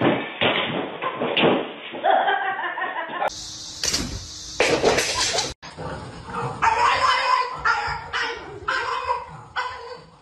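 A dog's vocal sounds mixed with people laughing, the sound changing abruptly twice.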